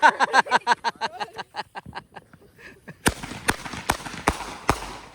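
A small consumer firework goes off with a string of about five sharp bangs, roughly two to three a second, with a hiss between them. Before that, about two seconds of rapid clicks slow down and fade out.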